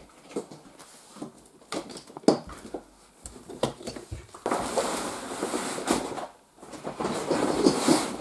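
Cover of an inflatable hot tub being taken off and handled: scattered clicks and knocks, then stretches of dense rustling from about halfway through, broken by a short pause.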